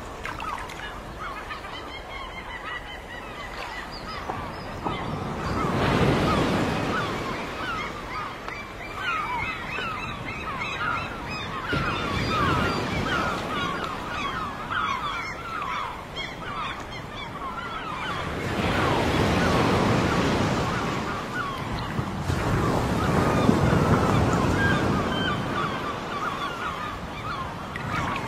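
Ocean surf washing in slow swells, with a flock of birds keeping up a constant stream of short honking calls.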